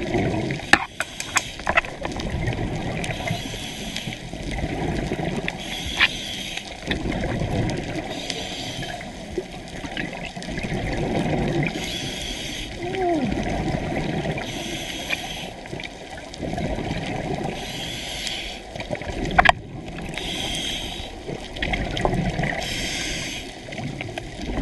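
Scuba diver breathing through a regulator, recorded underwater: bursts of exhaled bubbles gurgle and hiss about every three seconds over a steady rushing of water, with scattered sharp clicks.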